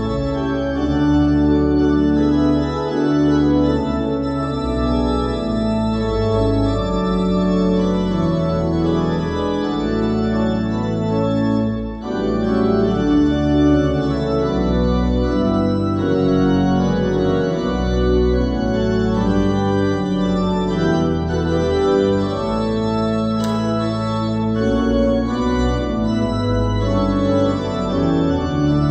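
Church organ played at a multi-manual console: slow, sustained chords over a deep pedal bass, changing every second or so.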